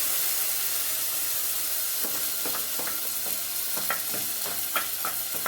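Onions, ginger and garlic sizzling steadily as they fry in oil in a pan. From about two seconds in, a stirring utensil clicks and knocks against the pan at irregular moments.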